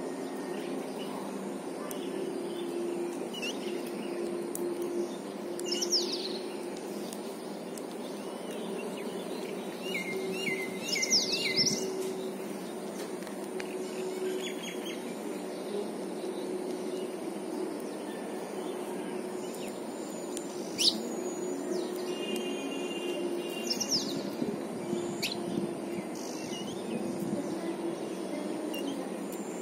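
Babblers giving scattered short chirps and squeaky calls, a few at a time with several seconds between them, with a cluster around the middle. Under them runs a steady low hum and a faint steady high whine.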